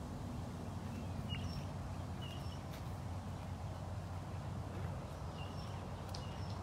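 Footsteps walking over ground, with short bird chirps repeated every second or two over a steady low hum.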